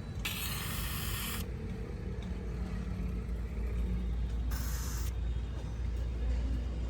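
Two bursts of hiss, the first about a second long starting just after the start, the second about half a second long around four and a half seconds in, over a steady low rumble.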